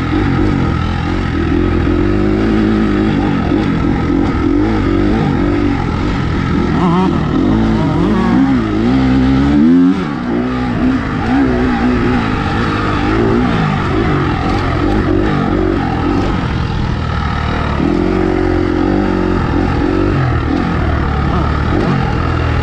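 Dirt bike engine being ridden hard, its pitch rising and falling with throttle and gear changes. A little before ten seconds in it climbs steeply to high revs, then drops away for a moment.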